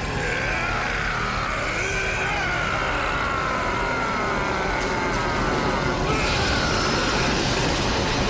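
Cartoon energy-blast sound effect: a loud, steady rushing roar, with a man's long, wavering battle yell over it. About six seconds in, a fresh surge of hiss comes in as the blast hits.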